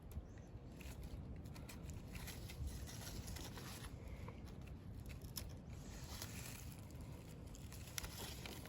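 Faint rustling and scattered small clicks of handling over a steady low rumble.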